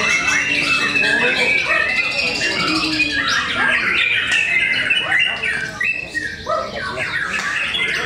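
Several caged white-rumped shamas (murai batu) singing at once against one another, their loud, varied whistled phrases and rapid trills overlapping in a dense chorus.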